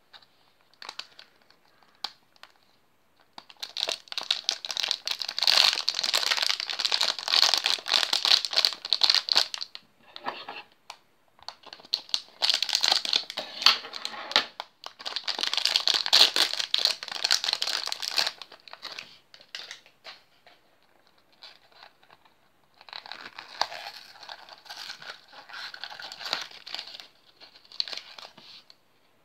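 Foil blind-bag packet crinkling in the hands as it is handled and torn open, in about four long bouts of crinkling with short pauses between.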